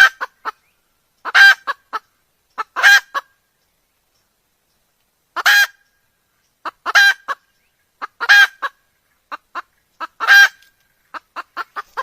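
Wild chicken (red junglefowl) giving a series of short, loud, repeated calls, about seven of them roughly a second and a half apart. Each loud call is followed by two or three fainter short notes, and there is a longer pause about three seconds in.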